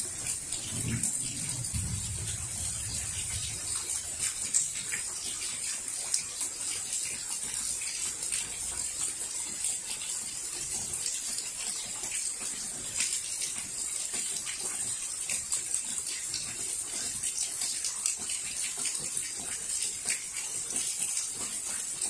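Steady rain falling, a constant hiss full of fine pattering drops. A low rumble of thunder dies away over the first few seconds.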